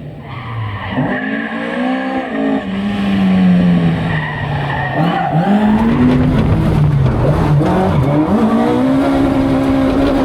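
Rally car engine revving hard, its pitch climbing and dropping several times as it works through gears and corners on a stage. It grows louder about three seconds in as it comes closer.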